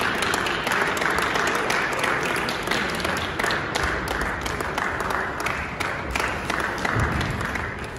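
Spectators applauding, a dense patter of hand claps that thins out near the end.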